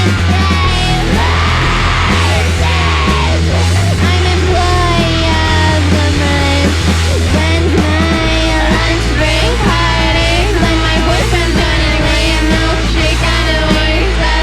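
Live rock band playing loudly, with a vocalist singing over the band. The bass drops to a lower note about eight seconds in.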